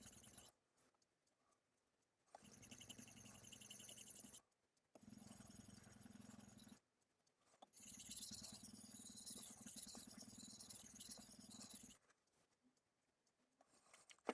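Shibata Tinker Tank knife's blade being stroked back and forth on a Suehiro Debado S 1000-grit whetstone, a steady rasping scrape. It comes in several stretches broken by short silences, the last silence near the end.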